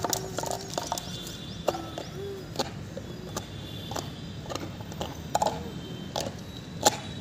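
A Labrador chewing and gnawing on a small rubber toy. Its teeth make irregular sharp clicks, about one or two a second, and there is a short squeaky tone about two seconds in.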